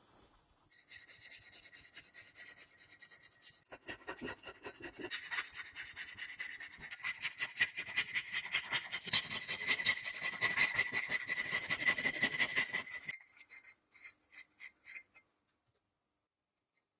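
Rapid back-and-forth rubbing strokes on metal, hand cleaning of a rusty road-roller part, with a thin steady high tone running alongside. The strokes start softly, grow louder and denser about four seconds in, stop abruptly around thirteen seconds, and a few last strokes follow.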